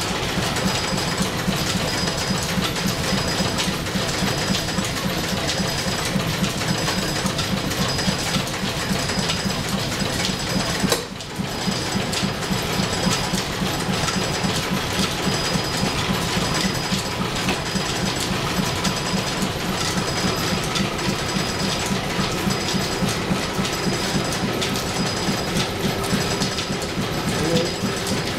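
Old flat-belt drill press driven from a steam-powered overhead line shaft, running steadily and drilling, with a fast, even mechanical clatter from the belts, pulleys and gearing.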